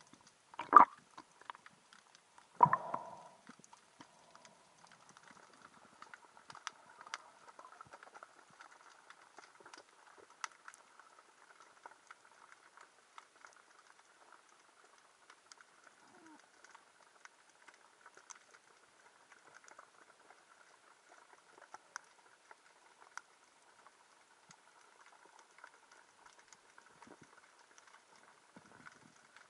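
Underwater sound heard through a diving camera: a faint, steady crackle of many small clicks, with two sharp knocks about a second and nearly three seconds in.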